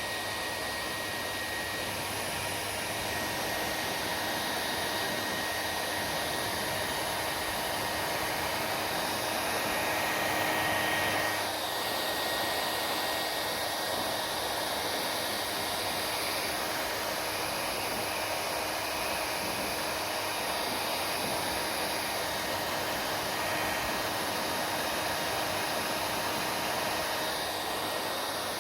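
Hair dryer running steadily, a continuous rush of air with a faint high whine; about ten seconds in it swells a little for a couple of seconds.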